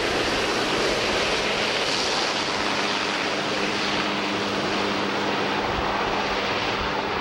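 Sikorsky VH-3D Sea King helicopter (Marine One) flying away overhead. Its rotor chop and engine noise hold loud and steady, with a low steady hum under the rotor beat.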